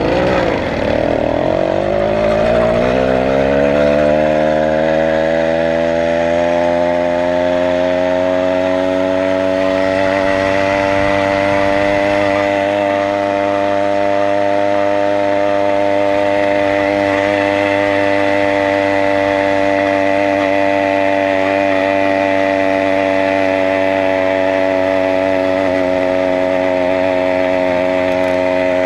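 Small two-stroke engine of a motorized bicycle pulling away, its pitch rising over the first few seconds, then running at a steady pitch while cruising.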